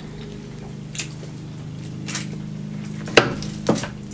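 Snow crab leg shells and a glass bowl of melted butter being handled on a foil-covered tray: a few scattered clicks and knocks, the two loudest a little after three seconds in, over a steady low hum.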